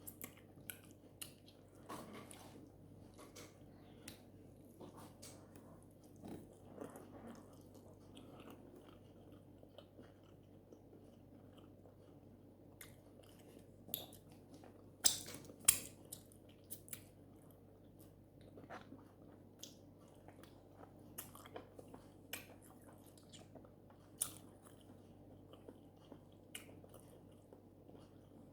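Close-up eating sounds: chewing and biting, with scattered sharp wet clicks of the mouth and lips. The loudest come as a pair about halfway through.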